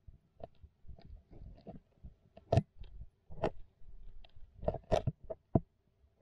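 Giant musk turtle's claws tapping and scraping on the tank floor as it walks: irregular clicks and knocks, a few louder, over a faint steady hum.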